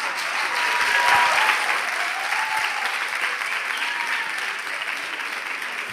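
Audience applauding, swelling in the first second and then slowly dying away, with a few faint cheers in the crowd.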